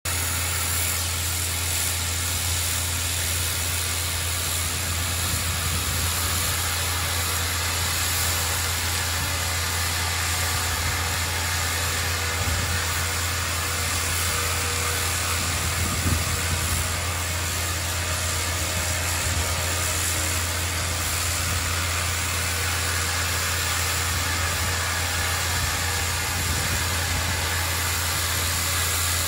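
A 40,000 psi ultra-high-pressure water blasting head jetting steadily against a steel ship hull, stripping paint and rust, heard as an even hiss over a steady low engine drone. One brief knock about halfway through.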